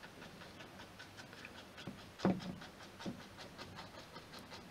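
Fan brush dabbing acrylic paint onto the painting surface: faint, quick light taps, about four or five a second, with one louder knock about two seconds in.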